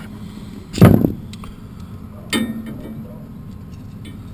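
Two sudden clanks from handling tools or panels while working on an HVAC package unit, the first louder and the second with a short ringing tail, over a steady low hum.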